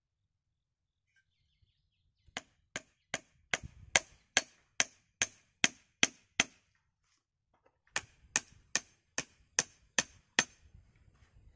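Small hatchet chopping into a thin upright wooden pole with quick, even strokes, about two and a half a second: a run of about eleven, a short pause, then about seven more.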